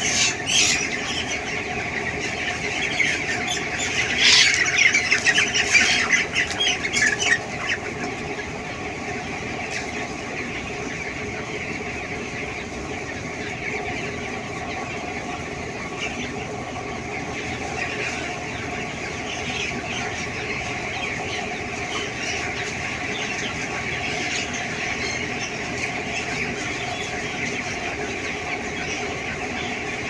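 A large flock of 18-day-old broiler chickens in a poultry shed, keeping up a steady mass of chirping and cheeping. A short burst of louder squawking and wing-flapping comes at the start, and a longer one from about four to seven seconds in.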